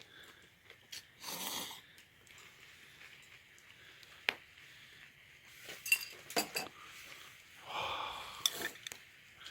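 Quiet eating sounds: utensils clinking now and then against a frying pan of ramyeon, with two short noisy bursts, about a second in and near the end.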